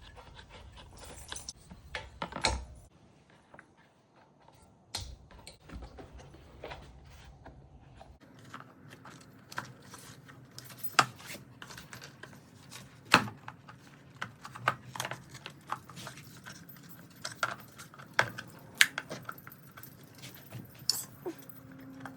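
Irregular clicks, taps and clanks of hand tools and metal parts being handled while working on a small pressure-washer engine, with no steady rhythm and a few louder knocks.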